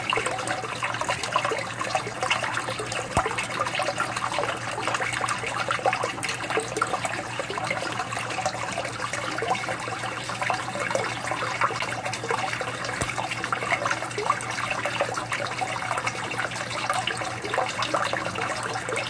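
Aquarium water trickling and bubbling steadily, with a low steady hum beneath.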